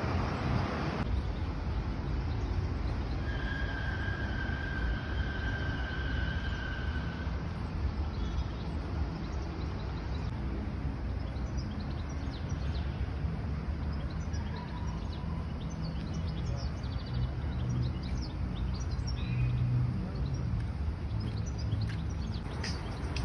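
Steady outdoor background noise with a low rumble, and a clear high whistle-like tone held for about four seconds a few seconds in, then scattered faint chirps.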